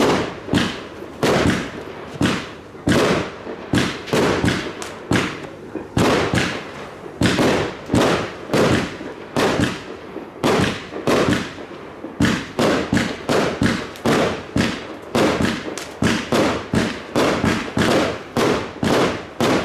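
Fireworks bursting in quick succession, about two to three sharp bangs a second, each followed by a short echoing tail.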